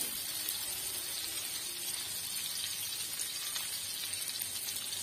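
Quail in green masala paste shallow-frying in oil in a pan: a steady sizzle, with an occasional light tap of the spoon turning the pieces.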